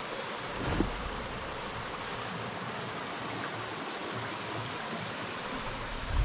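A stream of muddy brown water rushing steadily, with two short low thumps, one just under a second in and another right at the end.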